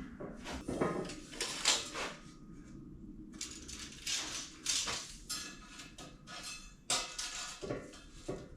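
Steel pieces clanking and clattering as they are handled: a run of irregular metal knocks and short scrapes.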